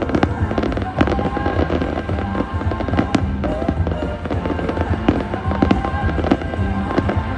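Fireworks going off in quick succession, sharp bangs and crackling pops, over music with held tones.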